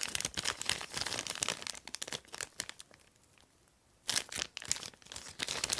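Packaging crinkling and rustling as items are handled and pulled out of a phone's retail box. Dense crackling for about two seconds, a short pause, then more crinkling after about four seconds.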